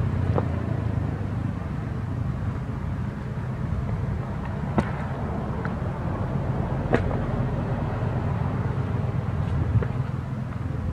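Steady low motor hum, like an engine running nearby, with a few sharp clicks or snaps about half a second, five seconds and seven seconds in.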